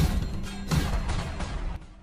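Outro music with sharp impact sound effects, dropping away sharply near the end.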